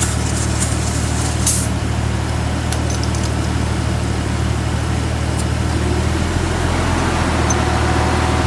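A vehicle engine idling steadily, with a few faint short clicks and a brief hiss in the first second and a half as a tire pressure gauge is pressed onto the valve stem.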